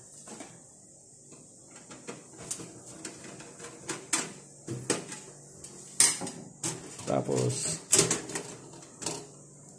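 Scattered sharp metallic clicks and knocks as a screwdriver drives the power supply's mounting screw into the steel computer case and the case is handled.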